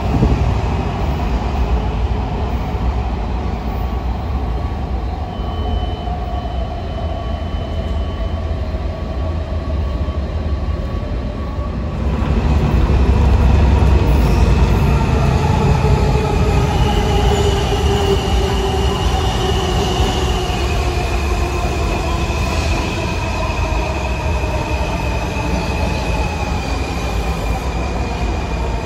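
Metro subway train running on the rails: a steady low rumble of wheels with shifting motor whine and high-pitched wheel squeal, getting louder about twelve seconds in.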